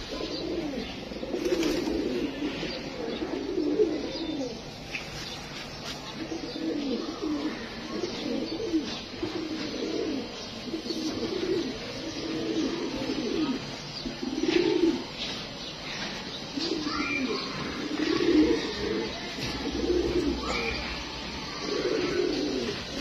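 A flock of fantail pigeons cooing, their low, rolling coos repeating and overlapping throughout.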